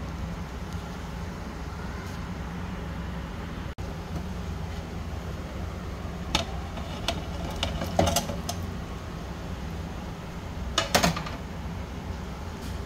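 Steady low background hum, broken by a few sharp clinks of a steel spoon and bowl against the cooking pot as fried chicken pieces are tipped into the gravy; the loudest clinks come about eight and eleven seconds in.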